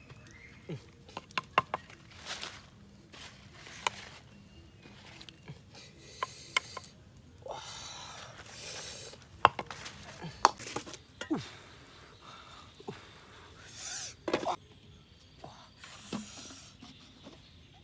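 Scattered sharp clicks and taps mixed with short rustling and scraping noises, from handling food and utensils while cooking or eating.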